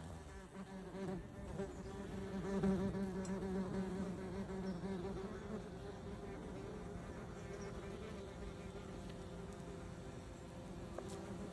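A wasp buzzing its wings at close range, a steady low-pitched buzz that is strongest in the first few seconds and then settles a little quieter.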